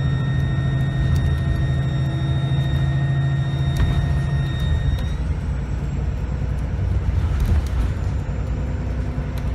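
Diesel bus engine running with a low rumble and a steady high-pitched turbocharger whine; the whine stops about five seconds in, with a single click shortly before.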